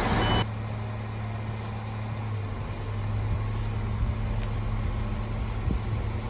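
Diesel engine of an Arriva Alstom Coradia LINT diesel railcar running steadily as the train approaches along the platform: a low, even hum. About half a second in, louder rushing noise of a train close by cuts off abruptly at a cut.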